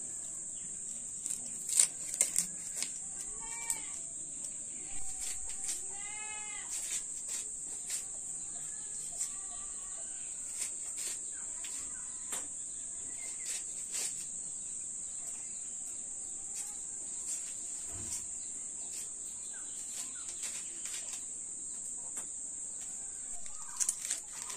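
Steady high-pitched drone of crickets and other insects, with a goat bleating a few times (one wavering call about six seconds in) and scattered sharp clicks.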